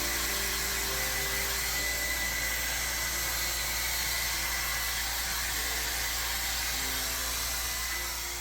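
A steady rushing hiss with faint background music underneath.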